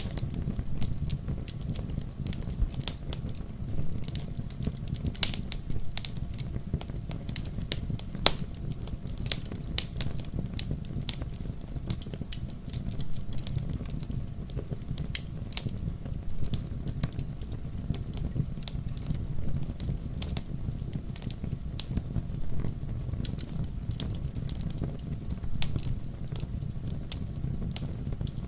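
Wood bonfire burning, with many sharp irregular crackles and pops over a low steady rumble of the flames.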